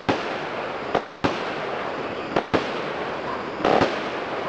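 Aerial fireworks bursting overhead: about half a dozen sharp bangs, some in quick pairs, over a continuous noisy hiss.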